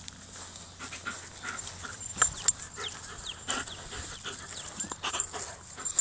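German Shepherd panting close by, with scattered sharp clicks and scuffs; two louder clicks come a little past two seconds in.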